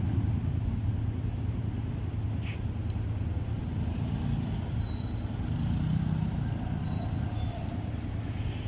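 Honda XRM125's single-cylinder four-stroke engine running steadily with a low, even hum, its tensioner mechanism freshly refitted and the under-engine noise judged cured.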